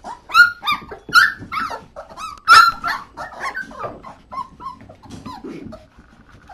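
A litter of young puppies whining and yelping in a rapid run of short, high, overlapping cries, loudest about halfway through and tailing off near the end. The cries come as the hungry puppies try to reach their mother to nurse.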